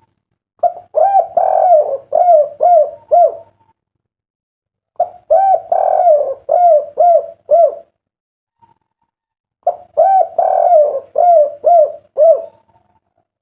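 Spotted dove (derkuku) cooing its 'kuk 3' song, three phrases about four seconds apart, each a run of short, clear coos.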